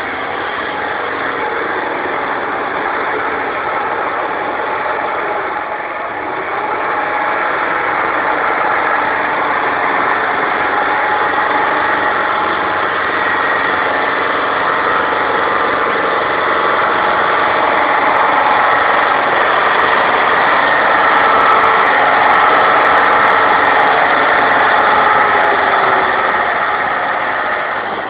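Mercedes-Benz 814 van's diesel engine running continuously under throttle as the van drifts on snow, getting louder in the second half.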